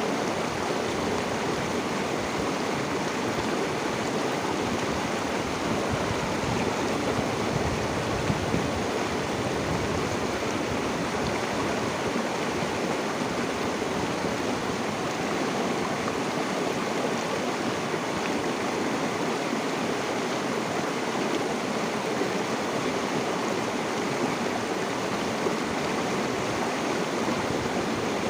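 River water flowing steadily over rocks in a continuous, even rush.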